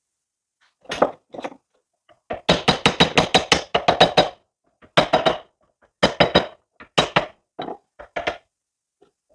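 Hammer blows on steel cylinder parts, rapid ringing metal strikes in short bursts with gaps between. The longest run of quick blows begins about two and a half seconds in.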